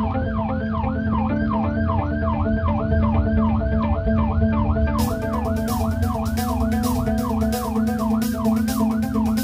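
Police escort car's siren in yelp mode, heard from inside the car's cabin: a rapid rising-and-falling wail repeating about three times a second, over the steady low hum of the moving car.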